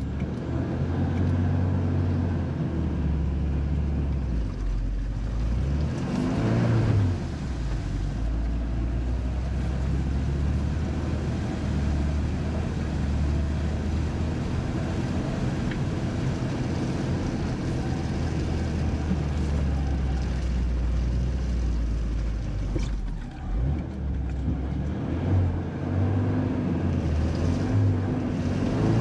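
Suzuki 4x4's engine running at low, steady revs on an off-road trail, revving up briefly about seven seconds in and again near the end.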